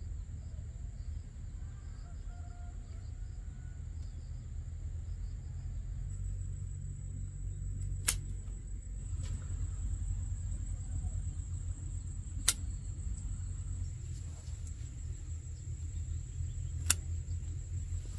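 Insects, crickets or cicadas, keeping up a steady high-pitched drone over a low rumble, with three sharp clicks about four seconds apart.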